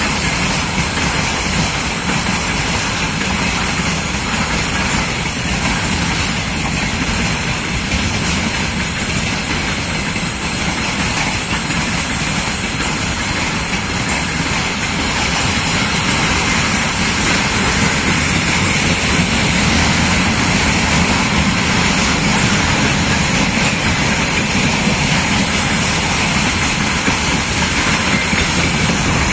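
Freight train wagons (tank cars, hoppers and container flats) rolling past: steady noise of steel wheels on the rails.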